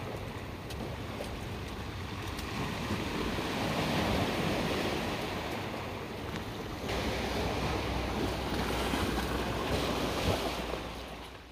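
Surf washing onto a rocky, stony beach, with wind buffeting the microphone; the wash swells and eases, and the sound fades out near the end.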